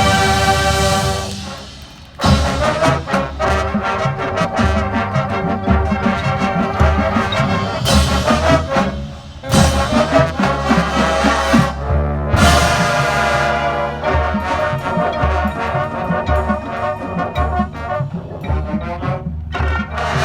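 Band brass section and percussion playing loud sustained chords over a steady drum beat, with cymbal crashes several times; the music dips briefly about two seconds in, then comes back in with a hit.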